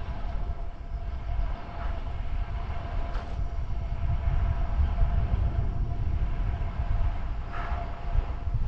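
Wind buffeting the microphone with a gusty low rumble while riding, over a faint steady whine, and a brief hiss twice.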